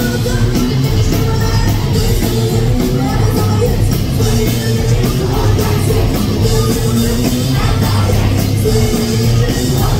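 A rock band playing live at full volume: electric guitars, bass and fast drums, with a woman singing into the microphone over them.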